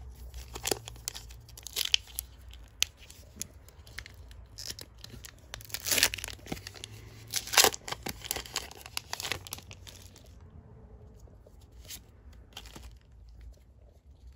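Foil wrapper of a Pokémon TCG booster pack being torn open and crinkled: a run of sharp crackling rips and crumples, loudest about six and seven and a half seconds in.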